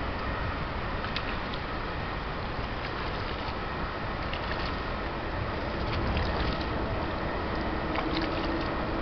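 Steady wind and water noise, with a few light splashes and clicks from a hooked fish and a landing net at the water's surface.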